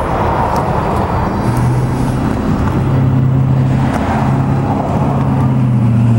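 A motor vehicle engine running steadily, a low droning hum over a continuous noisy background.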